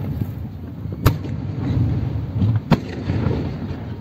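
Aerial fireworks shells bursting: two sharp bangs about a second and a half apart, over a steady low rumble.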